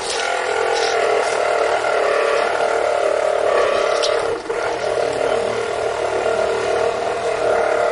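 A motor running steadily, with a brief dip about four and a half seconds in.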